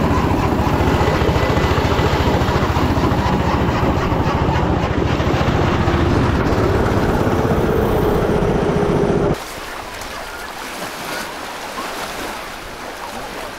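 Go-kart engine running hard, its fast pulsing din mixed with wind buffeting the onboard camera's microphone. About nine seconds in it cuts off abruptly, giving way to a quieter, steady rushing noise.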